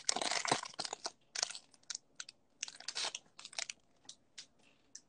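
A basketball trading-card pack wrapper torn open and crinkled as the stack of cards is pulled out: a dense rustle for about a second and a half, then scattered crackles that thin out and stop near the end.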